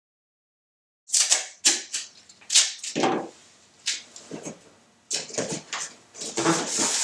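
Tape being torn from the roll and pressed onto a cardboard box around a fan to seal it: a run of short ripping and crackling sounds starting about a second in, coming thicker and almost continuous in the last two seconds.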